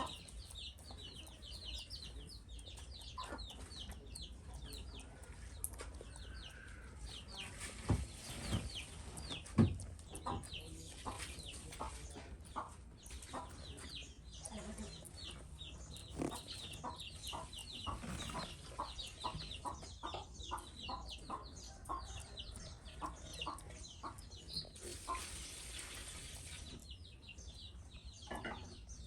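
A dense, rapid run of high bird chirps and clucks over a string of short soft clicks. Two louder low thumps come about a third of the way in, and a brief hiss near the end.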